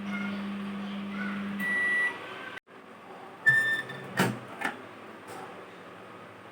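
Panasonic microwave oven running with a steady hum that stops about a second and a half in with a beep as the cooking cycle ends. A couple of seconds later comes another short beep, then two sharp clunks.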